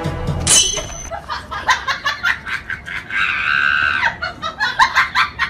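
A person laughing in short repeated bursts of giggles, with a drawn-out high squeal about three seconds in.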